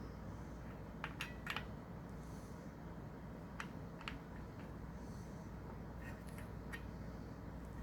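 Sharp, short metallic clicks and taps from hands and tools working on a bicycle wheel during spoke truing: a quick cluster of clicks about a second in, then single clicks every second or so, over a steady low hum.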